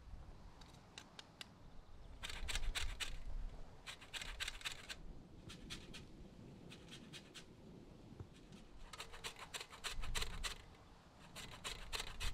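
Lime peel grated on a metal box grater: short runs of quick rasping strokes, about six runs with pauses between.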